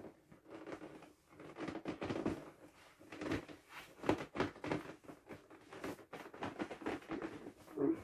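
Inflatable vinyl swim ring squeaking and rubbing in irregular bursts as it is handled and lifted, with short sharp squeaks and scrapes.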